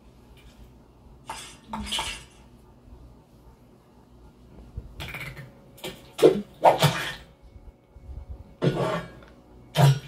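Film sound effects of a dinner table: dishes and cutlery clattering in several sudden bursts, the loudest group about five to seven seconds in, with another near the end.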